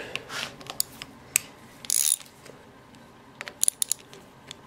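Ratchet wrench clicking in short, uneven strokes, with scattered metal clicks, while loosening the clamp screws of a motorcycle clutch master cylinder on the handlebar; a brief scrape about two seconds in.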